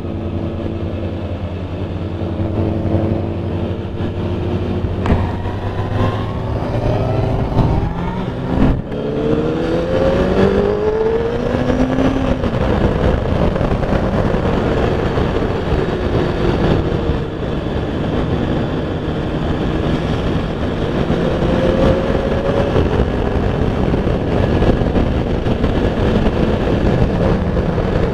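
A 2003 Honda CBR F4i's 600cc inline-four running at road speed under wind and road noise. About a third of the way in the engine pitch rises several times in steps, revving up through the gears, with a shorter rise later on.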